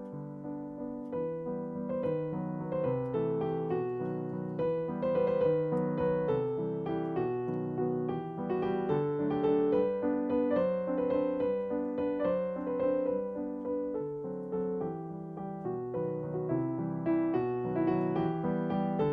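Background music: a gentle piano tune with chords and a melody moving in short notes.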